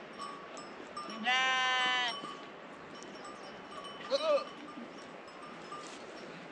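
Sheep bleating: one long, steady bleat about a second in, then a shorter, wavering bleat around four seconds in. Faint bell-like tinkles sound in between.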